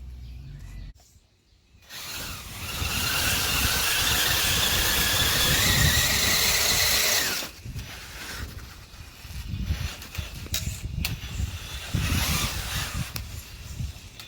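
Electric RC monster truck driving: a loud whine from its brushless motor and drivetrain, rising in pitch, runs for about five seconds and cuts off. Quieter, uneven driving noise with short bursts follows.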